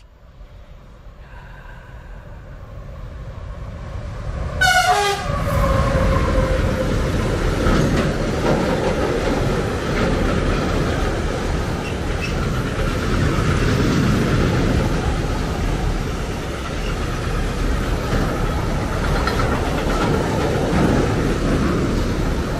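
Freight train of tank wagons approaching and passing close by. About four and a half seconds in, a short horn blast sounds, its pitch dropping as the locomotive goes past; then the wagons' wheels roll by on the rails in a loud, steady noise.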